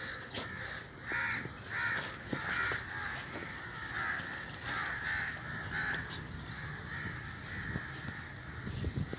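Crows cawing over and over, a quick run of short caws about two a second that thins out after about six seconds, over a steady low background noise. A few sharp knocks come near the end.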